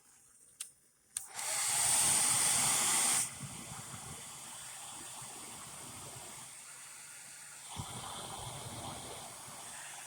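A Zippo Typhoon stormproof match struck with a couple of clicks, then flaring with a loud hiss for about two seconds, then settling into a quieter steady fizzing hiss as it burns.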